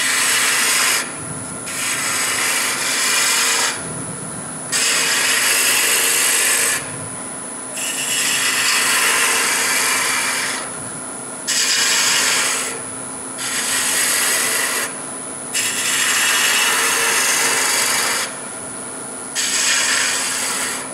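Spindle gouge cutting into spinning wood on a lathe: about eight hissing passes of one to three seconds each, with short pauses between them, over the steady hum of the running lathe. The repeated passes are thinning the goblet.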